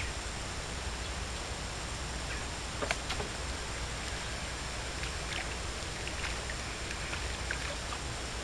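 Steady open-air hiss and low rumble from the boat on the lake, with a couple of light knocks about three seconds in as the fishing rod and tackle are handled.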